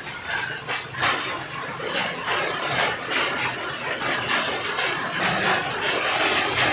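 Rain falling with runoff water flowing and splashing as it overflows onto the street, a steady rushing noise.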